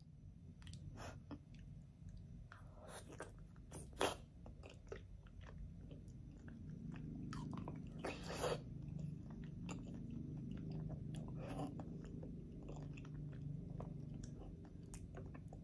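A person chewing and biting food close to the microphone, with wet mouth clicks and smacks and a few louder bites about four and eight seconds in. A low hum runs underneath in the second half.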